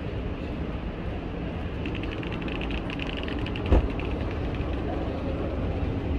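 Steady rumble of an underground train station, with an escalator running. A light rattling comes in about two seconds in, and a single sharp thump sounds near the middle.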